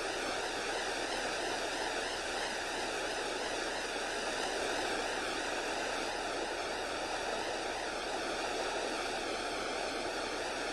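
Steady, unbroken rush of fast-flowing river water churning over rapids.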